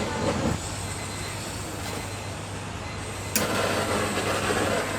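Steady background din with a low hum. A single sharp knock comes about three and a half seconds in, and after it the noise grows louder.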